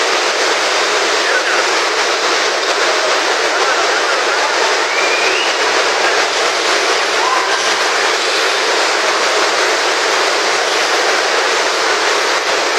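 Heavy rain on a large tent's canvas roof: a loud, steady hiss with no letup.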